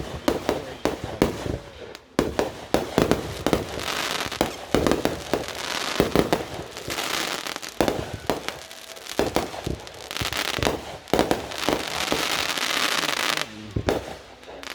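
Fireworks going off: a rapid run of sharp bangs and pops, with two long stretches of dense crackling in the middle and later part.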